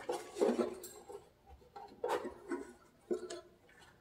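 Handling noises from hands working on the engine's spark plug wires and distributor: a few short knocks and rubbing sounds, at the start, about two seconds in and about three seconds in.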